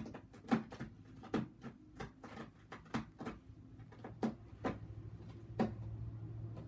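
A cat pawing at a closed door, the door knocking and rattling in its frame in a string of sharp, irregular taps, about two a second.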